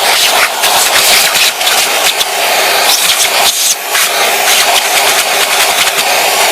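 Vacuum cleaner running loud and steady, with quick irregular clicks and rattles over its noise and a brief dip about halfway through.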